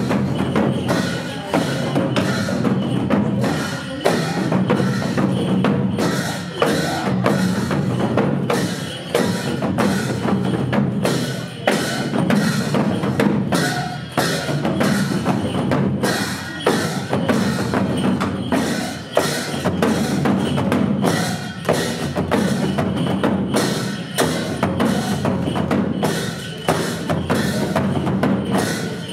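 Nepali folk music with a steady drum beat: drums struck with sticks, with other percussion on top.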